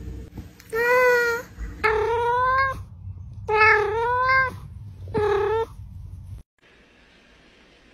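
Domestic cat meowing: several long, loud meows in a row, each bending a little in pitch. About six seconds in, they stop and give way to faint hiss.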